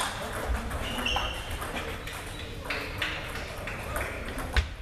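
Table tennis rally: a celluloid ball clicking off bats and the table in a quick irregular run of sharp ticks, with more clicks from games at other tables in the reverberant hall.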